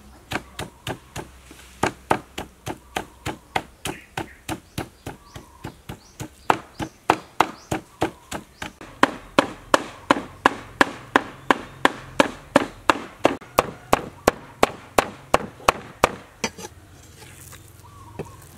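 Meat cleaver chopping raw pork into mince on a wooden chopping board. The knocks come in a steady run of about three a second and stop a couple of seconds before the end.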